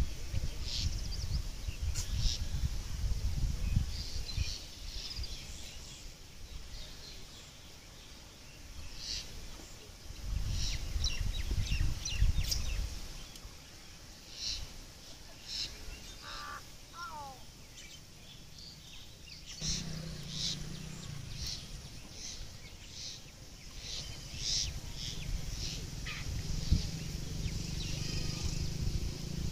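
Outdoor rural ambience with birds chirping again and again in short high calls. Two bouts of low rumbling noise come near the start and about ten seconds in, and a steady low hum sets in about twenty seconds in.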